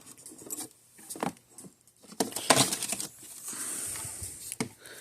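Handling noise on a workbench: a few light clicks and knocks, with a brief scraping rustle about three seconds in, as cables and a plastic scale indicator are handled.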